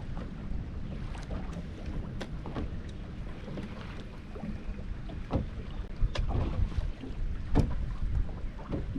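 A steady low rumble of wind and water around a fishing boat, with scattered knocks and clicks on the boat; the loudest come about five, six and seven and a half seconds in.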